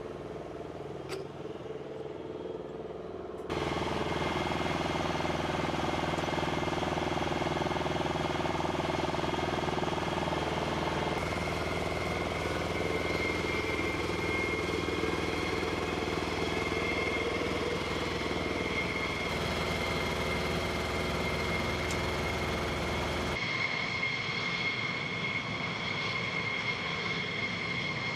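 Flight-line machinery noise: steady engine hum and running ground equipment, with a high steady whine of jet or turbine machinery coming in during the second half. The sound changes abruptly several times and gets louder suddenly a few seconds in, as if spliced from separate recordings.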